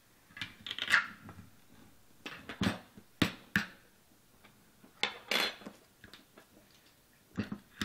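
Metal spoon scraping and knocking inside a container of hard, solid coconut oil, in several separate jabs and scrapes.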